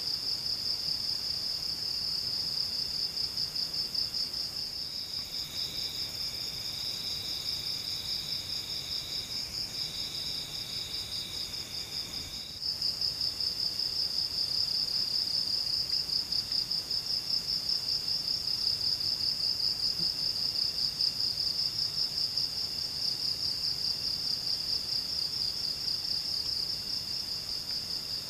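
Insects trilling in a steady high-pitched chorus. A second, slightly lower trill joins about five seconds in and stops about twelve seconds in.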